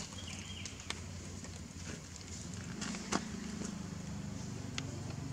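A steady low engine-like hum with a few sharp clicks about one, three and nearly five seconds in.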